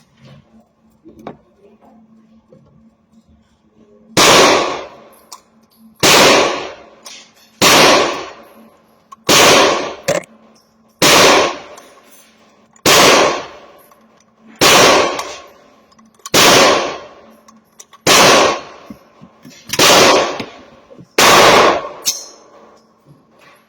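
A 16-inch AR-15 rifle chambered in 300 Blackout, firing 147-grain full-metal-jacket rounds. It fires eleven slow, evenly paced shots, one every second and three-quarters or so, starting about four seconds in. Each loud shot rings out briefly.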